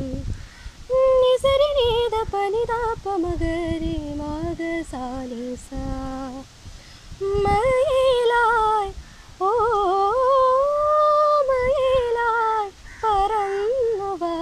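Young woman singing solo without accompaniment, in phrases with held notes and wavering, ornamented turns, pausing briefly between phrases.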